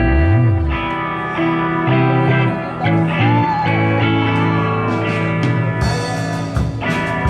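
Live rock band playing: electric guitar lines with bent notes over a steady bass. Drums and cymbals come in about six seconds in.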